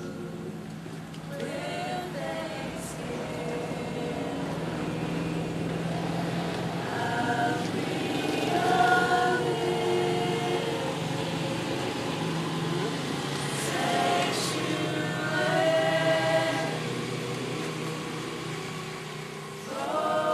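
A group of women singing a worship song together without accompaniment, in phrases of held notes. A steady low hum runs underneath.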